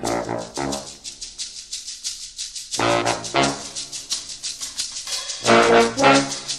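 Background music: pitched chords in three short phrases over a steady, quick rhythm.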